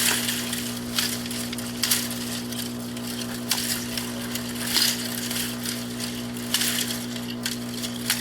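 Crunching, scraping strokes of a hand yard tool working through ground debris, one every second or so at uneven intervals, over a steady low hum.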